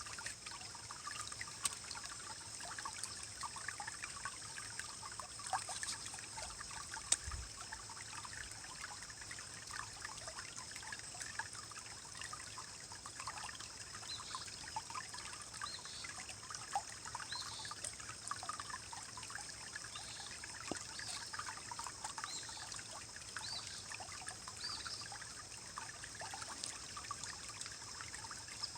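Small forest stream rippling and churning, a steady trickle full of little bubbling and gurgling notes.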